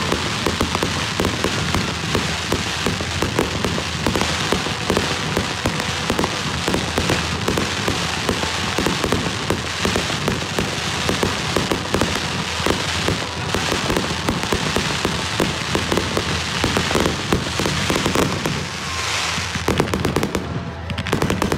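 Fireworks going off in rapid succession: dense crackling and popping mixed with repeated bangs from aerial shells and ground-fired tubes. There is a short lull about nineteen seconds in, then a run of loud bangs.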